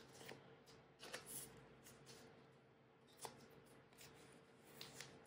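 Near silence, with faint rustles and a few light clicks of photocards being handled and slid into plastic binder sleeves.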